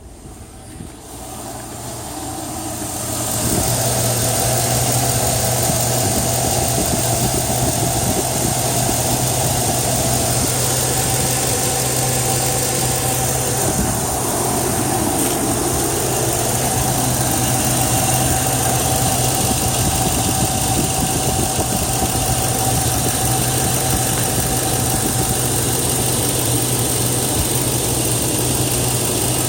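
2002 Chevrolet Tahoe's 5.3-litre V8 running at a steady idle. The sound comes up over the first few seconds, then holds even.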